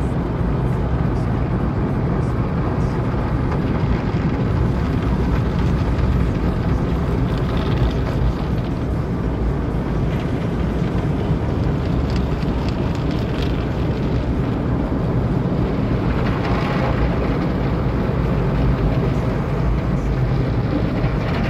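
Automatic car wash heard from inside the car's cabin: a steady, dense rumble of water jets, foam applicators and wash machinery working over the body and windshield. A hissier spray rises briefly about three quarters of the way through.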